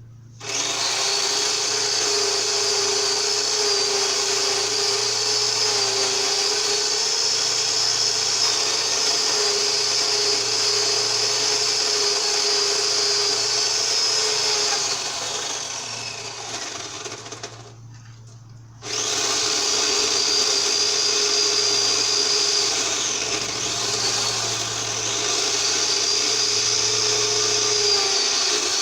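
Power saw running and cutting wood, with a steady whine. It tails off about 15 seconds in, stops for a moment and starts up again about a second later.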